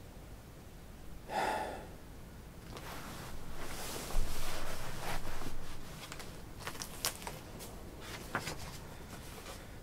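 A short breath sound a little over a second in, then rustling and paper crackles from handling a large hardbound book and turning its pages, with a string of short sharp paper clicks in the second half.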